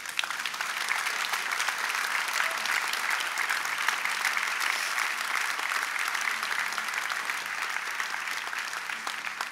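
Congregation applauding steadily, the clapping easing off slightly near the end.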